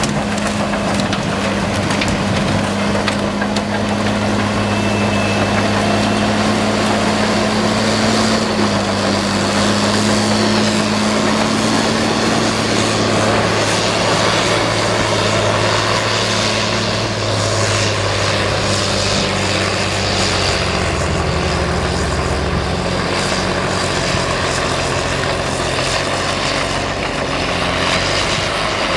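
Caterpillar crawler bulldozer's diesel engine running under load, its pitch shifting several times as it works. Over it come crunching and splintering of waste and wood debris being pushed and crushed.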